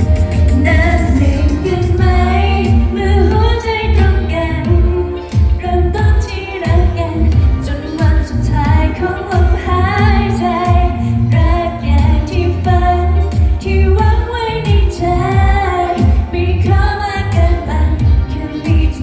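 A woman singing a Thai pop ballad live with band accompaniment, over a heavy steady bass and drums.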